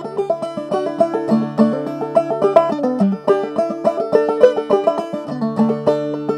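Open-back five-string banjo played clawhammer style, solo: an Irish reel in a quick, even run of plucked notes.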